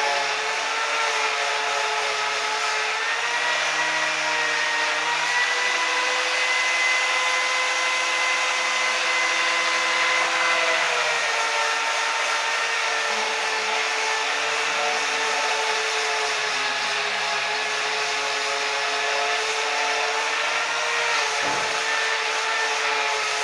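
Angle grinder with a buffing pad running steadily against stainless steel, its motor whine stepping up in pitch for several seconds in the middle and then dropping back.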